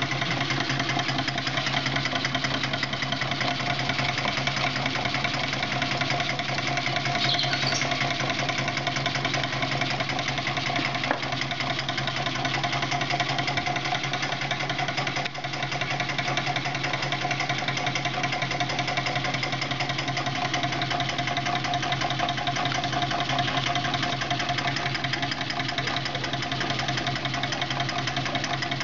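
Home-built gamma-type Stirling engine, its displacer cylinder made of beer cans, running steadily on candle heat. Its crank linkages give a fast, even mechanical rattle while it drives a small motor as a generator.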